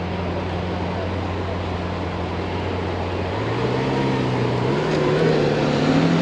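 Lamborghini supercar engine idling with a steady low hum, then revving up from about three and a half seconds in, its pitch climbing in steps and growing louder.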